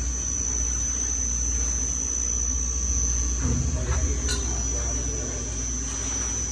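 Food dumbwaiter machinery running: a steady low hum with a thin high-pitched whine over it, and a few faint knocks about halfway through.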